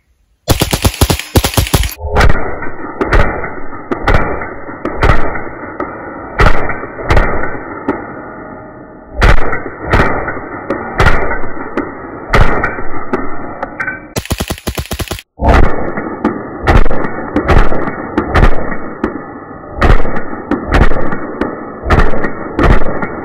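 .22 LR semi-automatic rifle firing a string of shots. A quick burst at real speed is followed by a slowed-down replay in which each shot is a dull, drawn-out low boom with no treble. The pattern repeats about midway, the second string fired with a muzzle compensator on the barrel.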